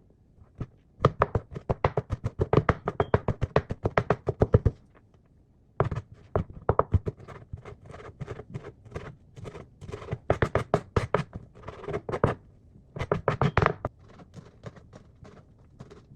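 Kitchen knife chopping fast on a cutting board, quick even strokes several a second, in a few runs broken by short pauses, cutting ingredients very small.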